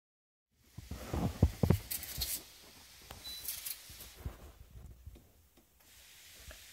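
Irregular knocks and clatter of a plastic pressure-washer lance being handled over wooden decking, loudest in the first two seconds, with two short bursts of hiss. A faint steady hiss starts near the end.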